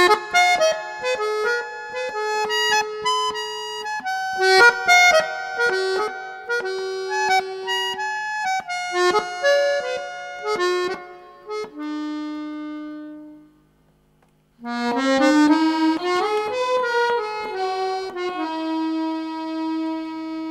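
Instrumental background music playing note after note, breaking off briefly about two-thirds of the way through, then resuming and ending on a long held note.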